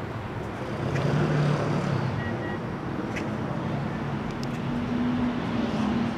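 Street traffic noise: a motor vehicle's engine running with a low hum that shifts higher in pitch in the second half, over a steady background of road noise.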